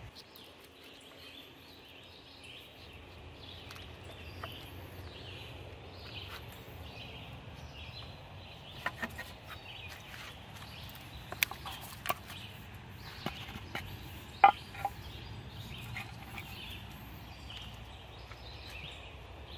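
A metal sardine tin tapped and scraped against a board as bait is emptied out, a few sharp clicks scattered through, the loudest about three-quarters of the way in. Birds call repeatedly in the background.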